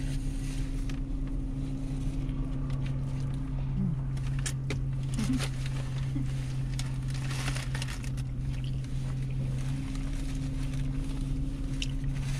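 Steady low hum inside a parked vehicle's cabin, with paper sandwich wrappers crinkling and rustling now and then, loudest around four to seven seconds in, and chewing sounds.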